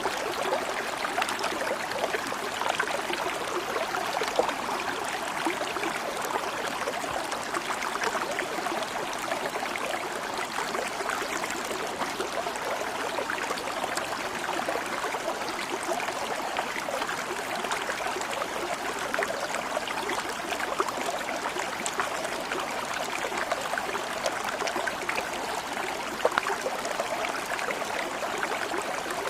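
Stream of water flowing steadily, a continuous babbling and trickling rush.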